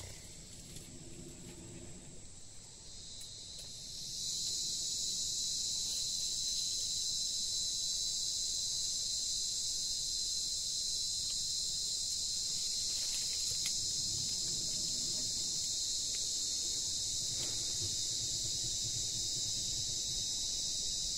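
A steady, high-pitched insect chorus that swells about three to four seconds in and then holds level.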